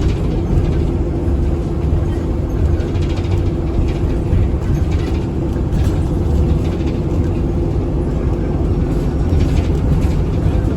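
Nova LFS city bus in motion, heard from inside: a steady low rumble of the running bus with a steady mid-pitched hum over it. The rider calls the bus's sound an odd, loud hum and does not know its cause.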